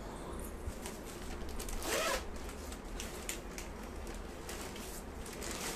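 Clothing fabric rustling as a dress and scarf are handled and folded: a run of short brushing swishes, the loudest about two seconds in.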